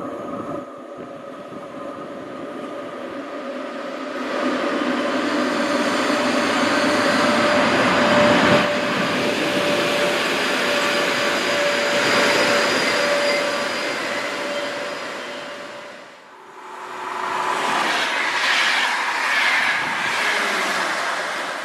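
Train passing on the main line, building to a loud rushing run with a steady high whine. The sound dips briefly about sixteen seconds in, then rises again with wavering tones and rail noise.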